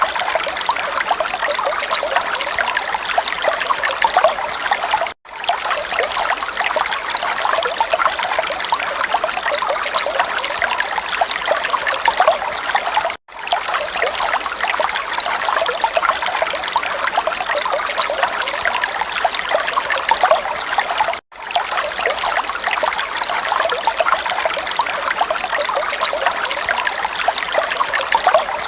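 Running water trickling steadily, broken three times by a brief drop-out to silence, about every eight seconds, where the recording loops.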